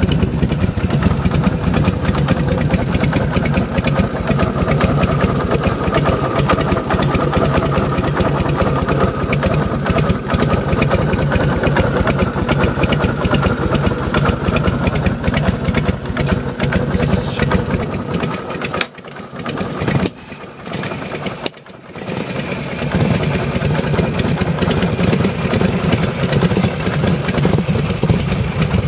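Vintage Harley-Davidson Panhead V-twin engine running steadily at idle. The sound drops away suddenly for a moment twice, about two-thirds of the way through, then carries on.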